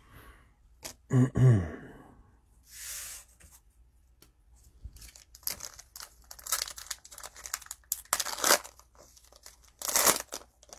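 Cellophane wrapper of a trading-card pack being torn open and crinkled, in a run of short rasps over the second half. A brief voice sound comes about a second in.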